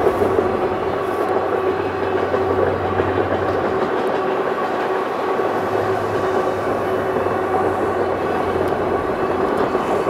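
Freight train container cars rolling past: a steady rumble of steel wheels on rail with a steady whine over it. A low hum fades out about halfway through.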